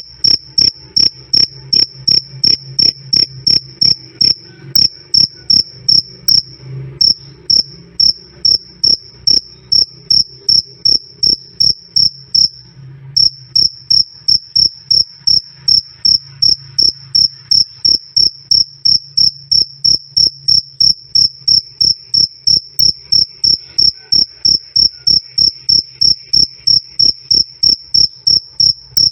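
Cricket chirping loud and clear, a steady run of short high-pitched "krik" chirps at about two to three a second, with two brief breaks in the rhythm partway through.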